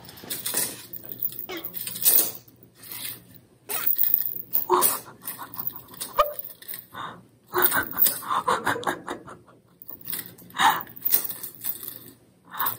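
Irregular scraping and rustling as a calico cat tugs a string toy across a smooth floor, with several bursts of breathy, stifled human laughter and gasps over a faint steady hum.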